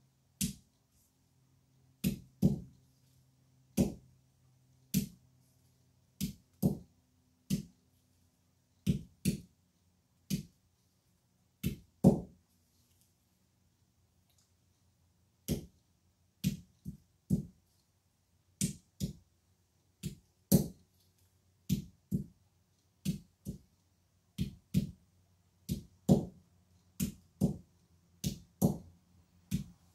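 Green olives being cracked one at a time with a stone on a hard surface: about thirty sharp knocks, roughly one a second, with a pause of about three seconds near the middle.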